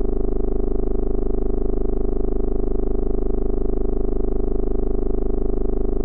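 Synthesized horror-style drone: a low, steady tone with rapid, even pulsing in its loudness.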